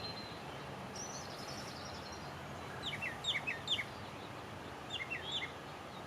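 Small birds calling over a steady background hiss of outdoor noise: a short high trill about a second in, then two clusters of quick down-slurred chirps.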